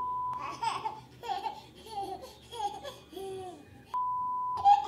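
A steady high censor beep cuts in at the start and again near the end, bleeping out a word. Between the beeps a baby babbles and giggles in short sounds that slide up and down in pitch.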